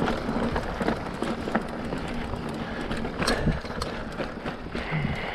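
Specialized Rockhopper hardtail mountain bike rolling over a dirt trail: tyres on dirt and roots with frequent irregular knocks and rattles from the bike, over a steady low rumble.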